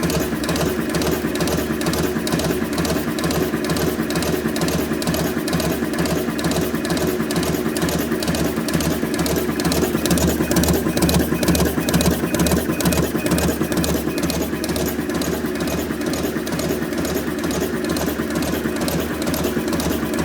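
A machine running steadily with a fast, even rhythmic clatter.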